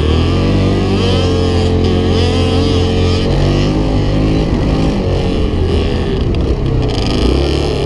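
Yamaha Grizzly 700 quad's single-cylinder four-stroke engine running under load while riding a sand track, its pitch rising and falling with the throttle.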